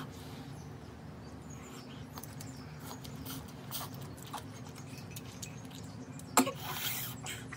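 Eating noises played at double speed: scattered small slurps and mouth clicks as noodles are eaten with chopsticks, and a sharper, louder slurp or breath about six seconds in, over a steady low background hum.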